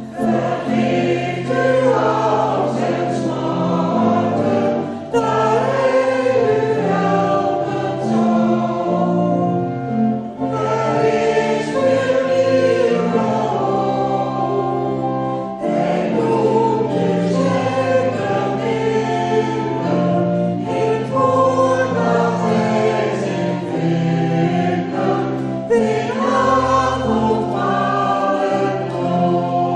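A church congregation singing a hymn together with organ accompaniment, in phrases of about five seconds with short breaks between them.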